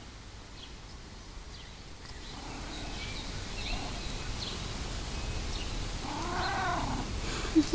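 Domestic cat making happy vocalizations: a faint call a couple of seconds in, then a longer meow that rises and falls in pitch about six seconds in, and a few quick short chirps near the end.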